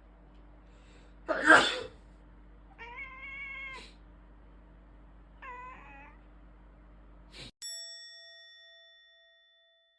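A person sneezes once, loudly. A cat answers with two meows: a longer, level one and then a shorter one that falls in pitch, in reaction to the sneeze. Near the end a click is followed by a bell-like ding that rings out and fades.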